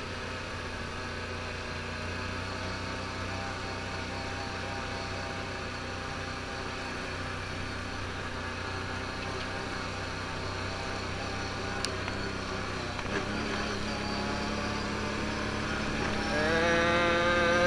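A Can-Am ATV's engine runs at low speed with a steady drone. Its pitch steps up about two-thirds of the way through, then rises and grows louder near the end as the quad accelerates.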